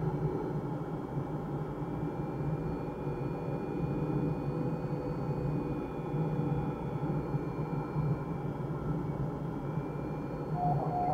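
Steady airflow noise around a glider's cockpit canopy in unpowered flight, an even low rush of air with faint thin high tones drifting above it.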